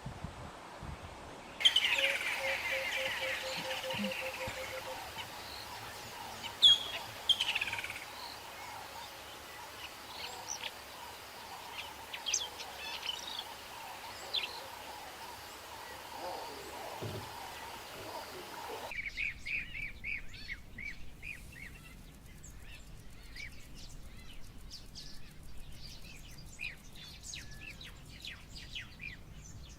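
Wild birds calling and chirping over a steady outdoor hiss: a quick run of repeated chirps about two seconds in, then scattered calls. The background changes suddenly twice, as if the recording is cut.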